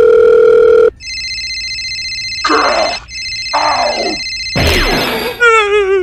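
Edited-in sound effects: a loud steady beep for the first second, then an electronic telephone ringtone lasting about four seconds with short vocal noises over it. Near the end comes a quick whoosh and then a wobbling, falling cartoon groan.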